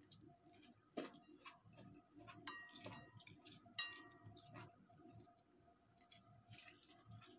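Chopsticks clicking and tapping against a ceramic plate while a piece of fried cabbage omelette is picked up: a few light, irregular clicks, some with a short ring, the clearest about a second in and around three to four seconds in.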